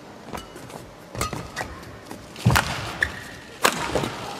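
Badminton rally at the net: a series of sharp racket hits on the shuttlecock, irregularly spaced, the strongest about halfway through, with short squeaks of shoes on the court over a faint arena hush.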